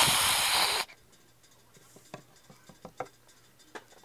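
A loud hiss-like rush lasting about a second at the start, then a few light clicks and taps as small plastic toy figures are handled and moved on a wooden floor.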